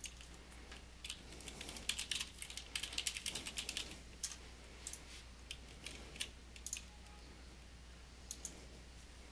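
Typing on a computer keyboard in quick runs for the first few seconds, then a few separate clicks of keys and a mouse button, with a close pair of clicks near the end.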